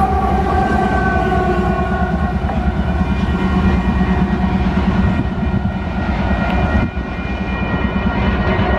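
Union Pacific diesel freight locomotives passing close by with a heavy engine and wheel rumble. Whining tones slide lower over the first couple of seconds as they go past. From about three seconds in, steady tones hold over the continuing rumble.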